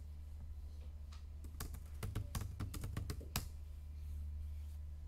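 Typing on a computer keyboard: a quick run of about a dozen keystrokes, starting about a second and a half in and stopping at about three and a half seconds, over a steady low hum.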